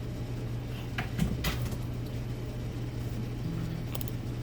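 Kitchen handling noises: a few sharp clicks and knocks, clustered about a second in and once more near the end, over a steady low hum.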